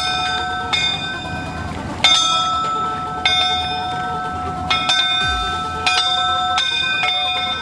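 Bell-like chimes struck one after another at uneven intervals of roughly a second, each ringing on and overlapping the next.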